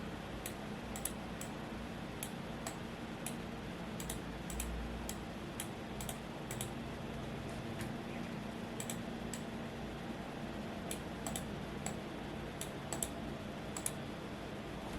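Typing on a Womier S-K71 mechanical keyboard: keystrokes come in short irregular runs with brief pauses between them, over the steady hum of a fan.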